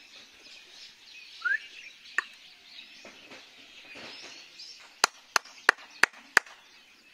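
Five sharp hand claps in quick succession, about three a second, clapped to scare birds out of a bamboo clump. Small birds are chirping throughout, which the speaker takes to be bulbuls and sparrows.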